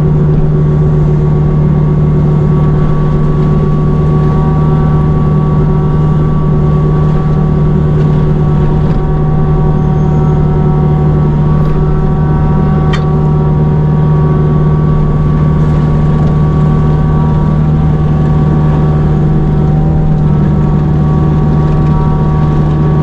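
Kubota U55-4 mini excavator running steadily with its hydraulic forestry mulcher head, a constant low engine hum with a steady higher whine over it. A single sharp click about halfway through.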